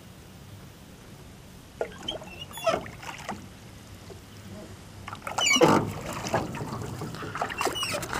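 Small fishing boat's motor running steadily at slow trolling speed, a low hum, with louder rushing bursts about two seconds in and again from about five seconds in.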